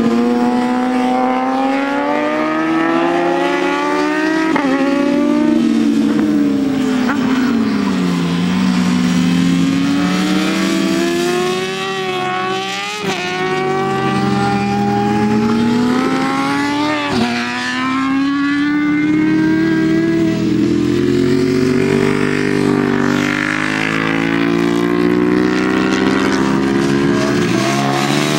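Racing motorcycles, a sport bike and a supermoto among them, passing one after another through a turn. Their engine notes overlap, the pitch falling as they slow into the corner and rising again as they accelerate out.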